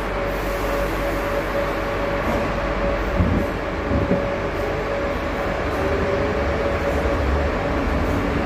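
Buenos Aires Subte Line E subway train running: a steady rumble with a constant whine. There are two brief louder knocks, about three and four seconds in.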